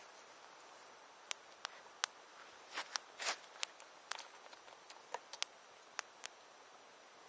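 Wood fire crackling: irregular sharp pops and snaps, about two a second at most, some louder than others, over a low steady hiss.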